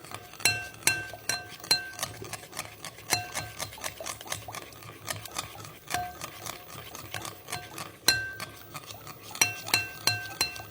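A spoon stirring a liquid mixture of lemon juice, olive oil and icing sugar, clinking against the sides of its container in quick runs of ringing clinks, about two or three a second, fainter for a stretch in the middle. The stirring is to dissolve the sugar into the lemon juice.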